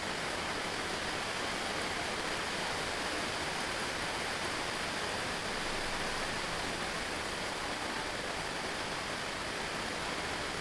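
Steady, even hiss of background noise with no separate events.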